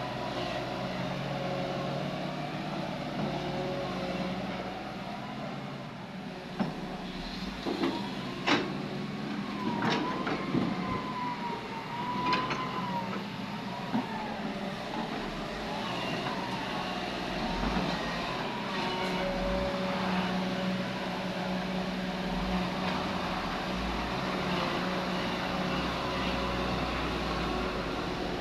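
Heavy diesel earthmoving machinery running steadily. Between about 6 and 14 seconds in there are several sharp knocks and a wavering whine.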